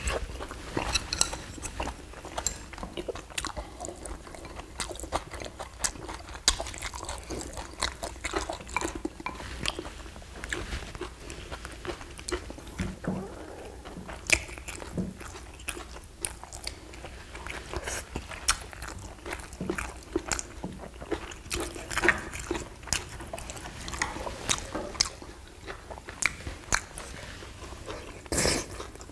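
Two people eating close to the microphone: irregular chewing, biting and mouth smacks. There are scattered sharp clicks of chopsticks and spoons against the dishes.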